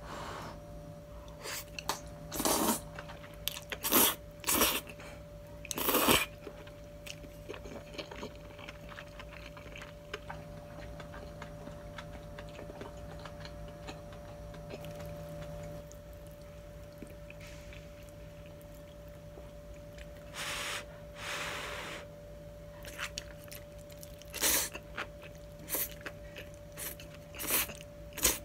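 A person eating stir-fried udon up close: noodles slurped in and chewed, with four short loud slurps in the first six seconds and two longer ones about twenty seconds in, between softer chewing sounds. A steady low hum runs underneath.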